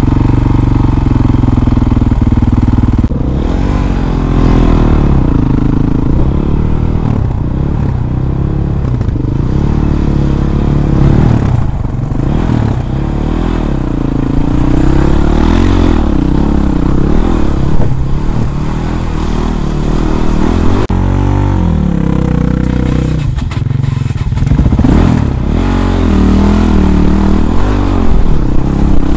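Dirt bike engine heard from the rider's own bike, running steadily for about three seconds, then revving up and down again and again as it is ridden over steep rocky ground, with a few knocks and rattles.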